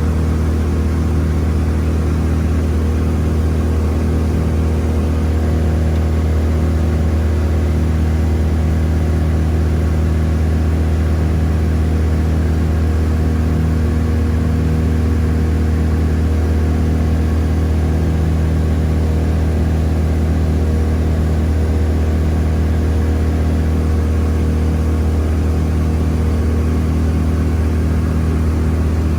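A boat's engine running steadily underway, a constant low drone that neither rises nor falls.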